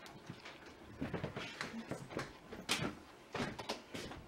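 An office door opening and a person walking in: a scatter of clicks, knocks and footsteps with clothing rustle, from about a second in.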